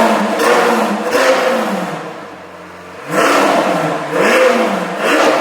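Lamborghini Aventador SV's V12 blipped through a freshly fitted FI straight-through exhaust, in about four sharp revs: two close together, a short lull, then two more.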